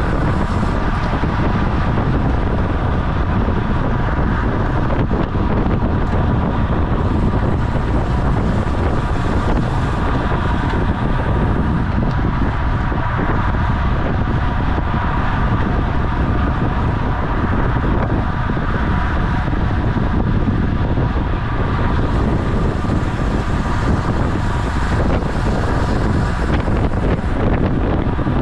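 Wind rushing over the microphone of a camera on a road bicycle ridden at racing speed, a steady loud rush with a faint steady whine underneath.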